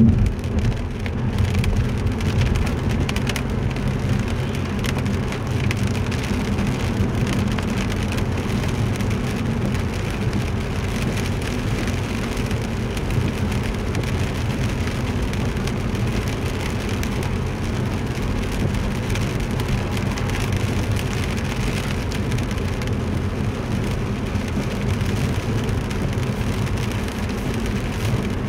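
Steady noise of a car driving in rain, heard from inside the cabin: tyres running through water on a wet road and rain striking the car, over a low road and engine drone.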